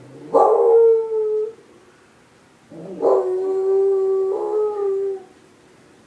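A beagle howls twice, joining in with a civil defense siren: first a short howl, then a longer one starting about three seconds in. Each howl rises sharply into a held, steady pitch, and the second swells again partway through.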